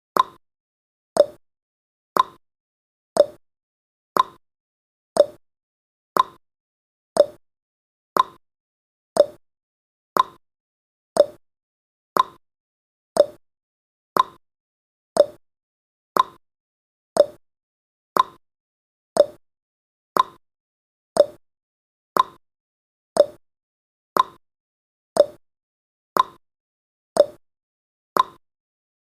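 Countdown timer's ticking sound effect: a clock-like click once every second, the clicks seeming to alternate slightly higher and lower like a tick-tock.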